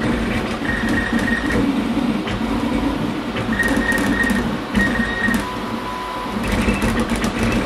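Desktop 3D printer running a print: its stepper motors whine in short tones that start, stop and change pitch as the print head moves, over a steady hum.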